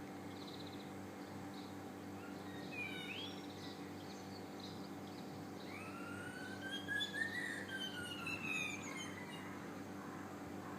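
A bird mimicking a police siren: one long whistled wail about six seconds in that rises and then falls over some three seconds, with a shorter upward sweep a few seconds earlier and short chirps around them.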